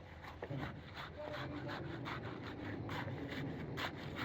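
Irregular scrapes and light knocks over a low, steady rumble, like a machine running.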